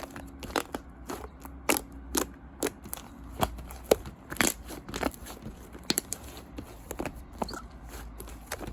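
Fluffy slime pressed and squished by hand, giving irregular sharp pops and crackles, several a second.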